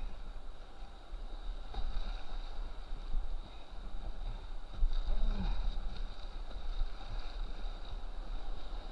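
Rushing whitewater of a river rapid around a kayak being paddled, with paddle strokes splashing now and then and a low buffeting rumble on the camera's microphone.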